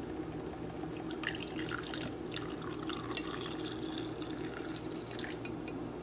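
Hot coffee poured from a glass coffee-maker carafe into a ceramic mug: a steady pouring trickle as the mug fills.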